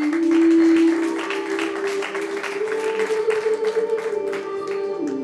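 Recorded music with a slow melody of long held notes, with audience applause mixed in that thins out near the end.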